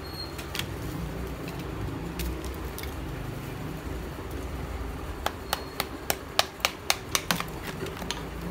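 Hard pieces of roasted multani mitti (fuller's earth clay) clicking against each other as they are handled: a quick run of about nine sharp clicks, roughly four a second, starting about five seconds in. A steady low hum lies underneath.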